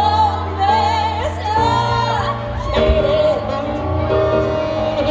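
Recorded show-tune music for a dance routine: a singer holds long notes with vibrato over instrumental backing and a steady bass line, the longest note held from about three seconds in.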